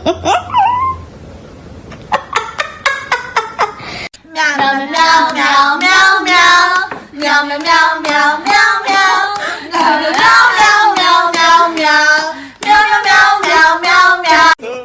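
About eight quick handclaps, then a long stretch of high, wavering singing with vibrato in short phrases.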